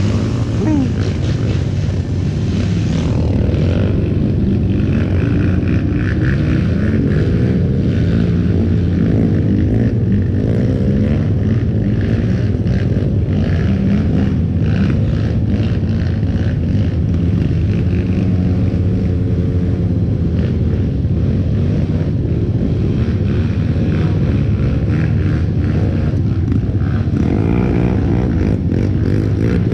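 Motorcycle engine running while riding, its pitch rising and falling with the throttle, with short rattling clicks over it.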